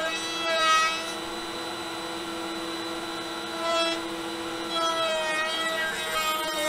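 Table-mounted router running with a 1/4-inch roundover bit, rounding over the edge of a plywood trim strip. The motor's steady whine bends in pitch and gets louder each time the wood is pushed into the bit: about a second in, near four seconds, and again from about five seconds on.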